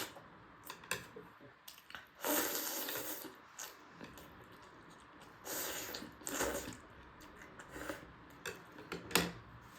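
Eating sounds close to the microphone: a few wet slurps and smacking chews while momo and Maggi noodles in soup are eaten, with small clicks in between.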